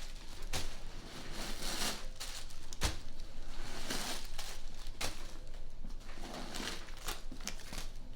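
Rustling and crinkling as a handbag is handled, in a series of swells, with one sharp click about three seconds in.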